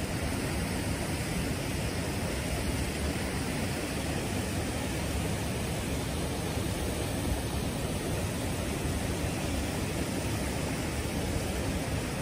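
Steady rush of a shallow mountain stream running over rocks.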